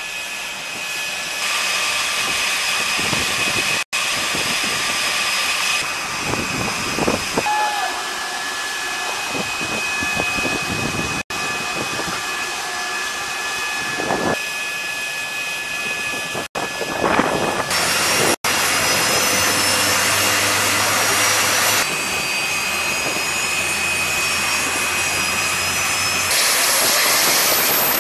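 Turbine whine of an MH-60 Seahawk helicopter's engines running, a steady high whine over rushing noise as the rotors spin up. The sound breaks off and changes abruptly about four times across the clip.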